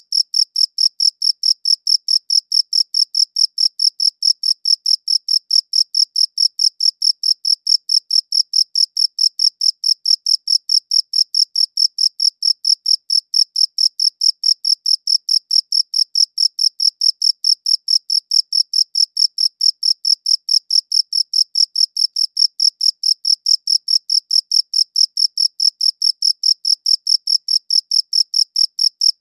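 A cricket chirping steadily in a fast, even rhythm of about four high-pitched chirps a second.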